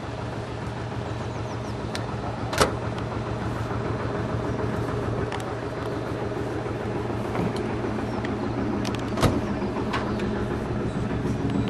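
A steady low engine hum, like an engine idling nearby, with two sharp knocks standing out above it, one a few seconds in and one near the end.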